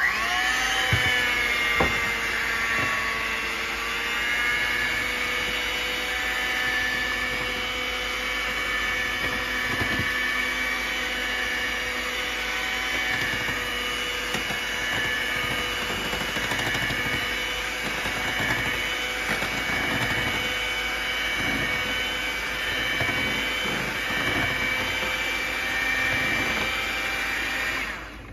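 Electric hand mixer running, its beaters churning brownie batter in a bowl. It starts abruptly, its whine sagging in pitch over the first couple of seconds, then runs steadily with a few knocks and cuts off abruptly at the end.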